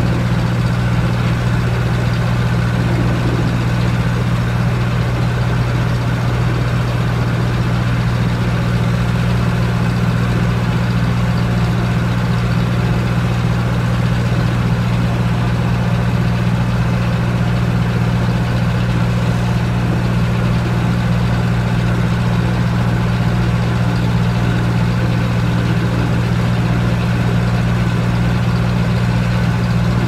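Antique tractor engine running steadily at one constant speed, a low, even hum with no change in pitch or load.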